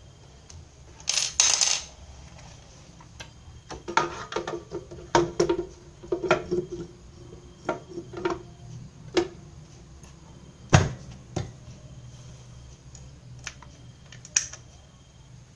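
Irregular metallic clinks, taps and knocks as the transmission (CVT) cover of a Honda Vario 125 scooter is fitted back on and its bolts handled. Two short scrapes come a little over a second in, and the sharpest knock comes about eleven seconds in.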